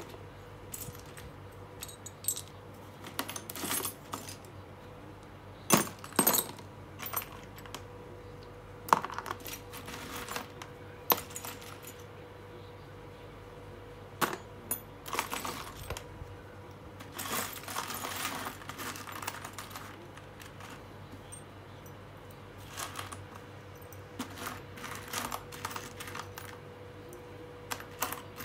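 Old, partly rusty screws and small metal hardware clinking and rattling as a hand sifts through a pile of them and picks pieces out. Irregular clinks throughout, with a longer rattle of many pieces shifting together about seventeen seconds in.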